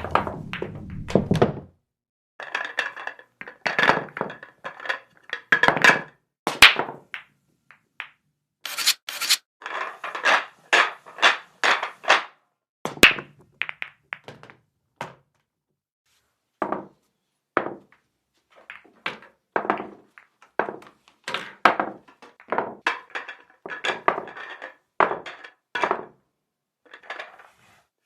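Billiard balls clacking: a long series of sharp clicks, often in quick runs of several, with a low rumble in the first second and a half and a short pause midway.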